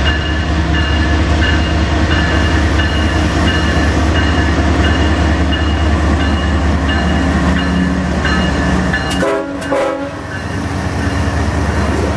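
Canadian Pacific diesel-electric freight locomotive passing close by, its engine a heavy low drone. About nine seconds in the drone falls away briefly as the locomotive goes past, then the autorack cars roll by.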